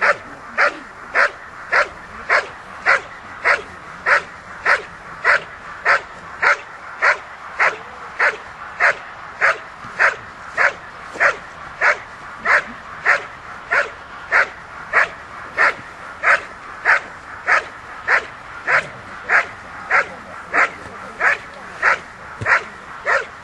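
A dog barking steadily and evenly, a bit under two barks a second, at a motionless helper holding a protection sleeve: the guard-and-bark (hold-and-bark) exercise of a protection-dog trial.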